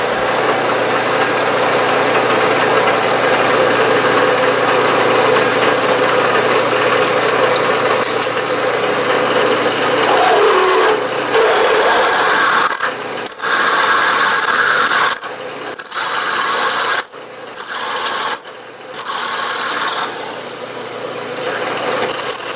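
Vertical milling machine spindle turning a 7/16 in twist drill as it cuts a hole through a metal plate, a steady mechanical drone with a constant hum. In the second half the cutting sound changes and a high whine joins it, and the sound cuts out sharply several times.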